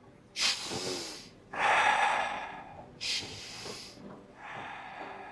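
A person doing forceful breathing cycles: two sharp, hissing in-breaths, each followed by a longer, relaxed out-breath. This is the forceful-inhale, relaxed-exhale pattern of 'fire' breathing, and the first out-breath is the loudest.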